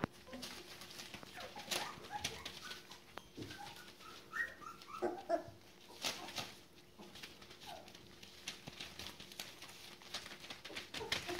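Border collie puppies about four weeks old giving short squeaky calls in small clusters, a couple of seconds in, around the middle and again later, while their paws scratch and crackle on the newspaper floor.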